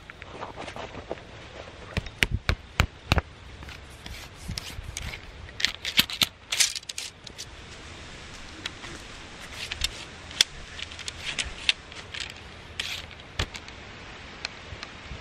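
Irregular sharp clicks, taps and scrapes from handling a flintlock longrifle, its ramrod and lock worked by hand, in clusters about two seconds in, around six seconds, and again between ten and thirteen seconds.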